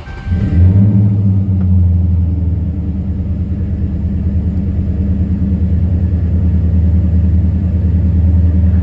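2014 Dodge Charger SRT8's 6.4-litre HEMI V8 starting: it catches almost at once, flares up in the first second, then settles to a steady idle within about two seconds. The engine is still misfiring, on cylinder 3, even with its coil pack swapped to another cylinder.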